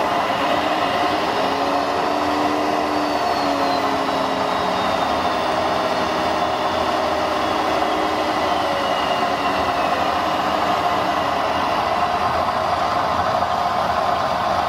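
Radio-controlled turntable-ladder fire truck running steadily with an engine-like idle while its ladder is raised. Faint whining tones slide slowly down in pitch during the first half.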